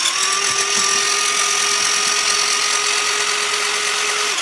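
JJRC Q63 RC truck's electric drive motor and all-plastic gearbox and driveshafts spinning the six wheels in the air, a steady whine at one pitch. It settles after a slight rise at the start and cuts off suddenly near the end. The throttle is on/off, so it runs at full speed or not at all.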